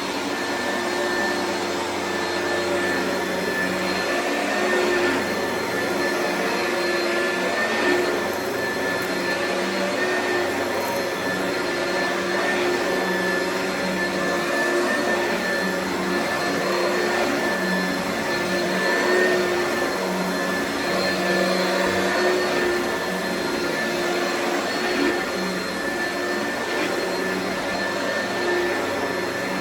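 Oreck vacuum cleaner running steadily with a constant motor whine, its loudness swelling slightly as it is worked back and forth.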